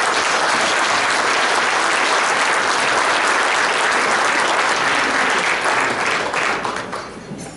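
Audience applauding, steady and dense, then tapering off over the last second or so.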